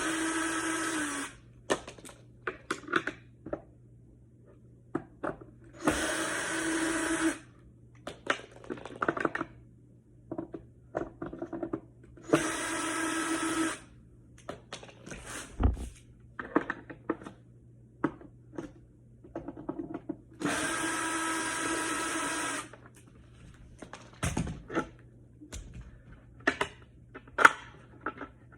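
Drill running in four short bursts of one to two seconds, backing out the four bolts that hold a skateboard truck to the deck, with small clicks and clatter of handling the hardware in between.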